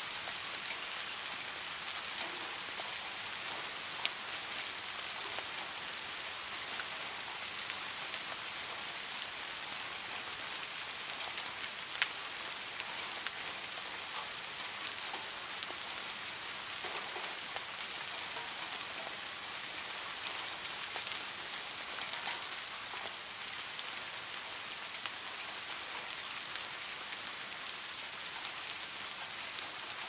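Steady rain falling, a dense even hiss of drops with now and then a sharper single tick standing out.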